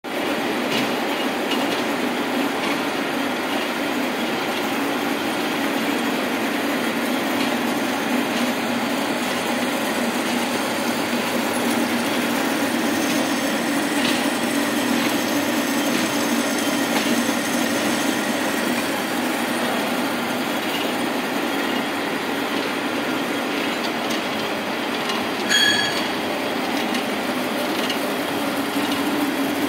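Heavy engine lathe running under load, boring out the centre of a large toothed wheel: a steady mechanical running noise with a low hum throughout. A brief high-pitched squeal cuts in once about 25 seconds in.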